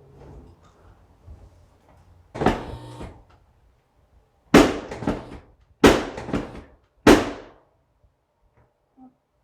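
Chiropractic spinal adjustment: a burst of cracking about two and a half seconds in, then three loud, sharp thrusts about 1.3 seconds apart, each followed by quick joint pops.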